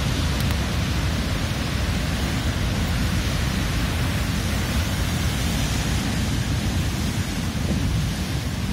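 Rough ocean surf breaking and churning against a rocky shore, a steady dense rush, with wind buffeting the microphone as a heavy low rumble.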